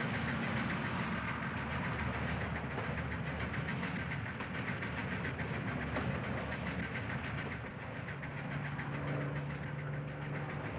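Steam locomotive and its train running at speed: a dense, steady clatter, with a low steady hum growing louder in the last few seconds.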